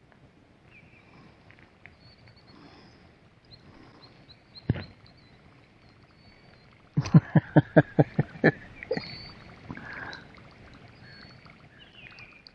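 Knocks on a plastic fishing kayak as it is handled on the water: a single knock, then a quick run of about ten knocks in a second and a half, with faint high chirps in the background.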